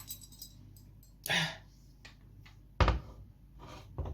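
Handling noises: a brief scuffing noise about a second in, then a dull knock about three seconds in.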